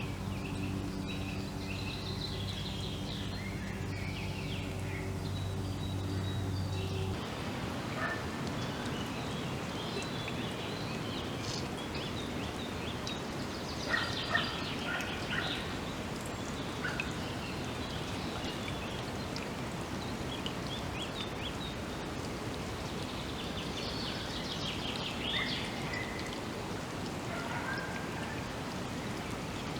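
Forest ambience: songbirds calling in short scattered chirps and phrases over a steady background hiss, busiest about halfway through and again near the end. A low, steady engine hum is heard for the first seven seconds or so, then stops.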